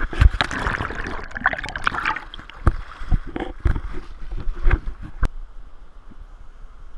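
River water splashing and sloshing around an action camera held at the water's surface, with repeated splashes and knocks for about five seconds. It then settles into a softer, steady wash of water.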